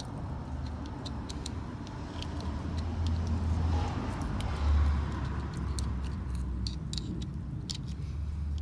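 Scattered small metallic clicks and ticks as a motorcycle chain's master link and its spring clip are worked on by hand. Under them runs a steady low rumble that swells in the middle.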